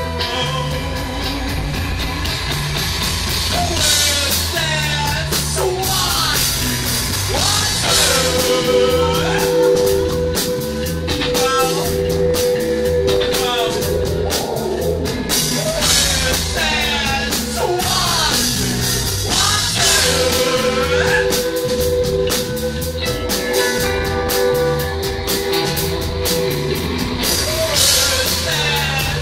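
Live rock band playing loud in a small club: drum kit, electric guitar and bass guitar, with a voice singing and a note held steady over long stretches.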